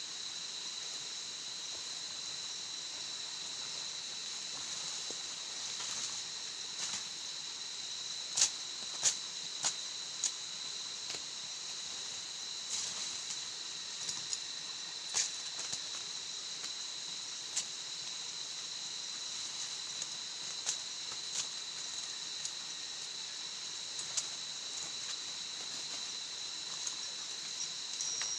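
Steady high-pitched insect chorus, with irregular sharp snaps and cracks now and then.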